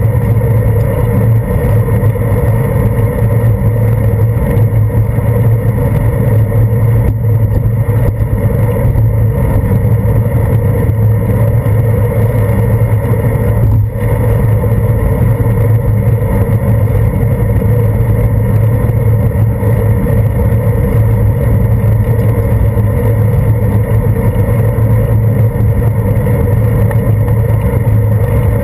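Steady, loud rumble of a bicycle riding on wet pavement, picked up by a handlebar-mounted GoPro Hero 2: wind and road vibration through the mount, with a brief dip about 14 seconds in.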